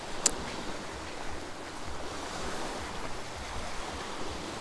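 Small waves washing onto the shore with wind on the microphone, and a single sharp click just after the start.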